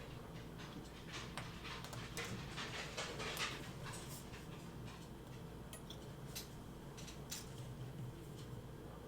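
Faint, scattered clicks and light taps of small metal tools on watch parts during disassembly of a Seiko 6106 automatic movement, over a steady low hum.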